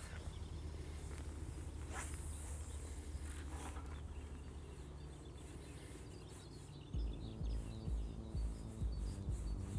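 Faint outdoor ambience with a steady low rumble of wind on the microphone and an occasional faint click. About seven seconds in, background music with a deep, pulsing bass beat comes in.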